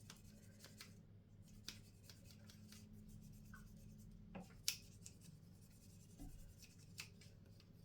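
Quiet rubbing and small clicks of a cotton bud being worked into a plastic washing-machine detergent drawer, with one sharper click a little past halfway, over a low steady hum.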